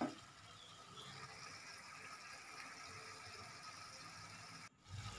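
Wok of chicken uritan and offal simmering in sweet soy sauce and water, giving a faint, steady sizzling hiss. It follows a brief knock at the start and breaks off abruptly near the end.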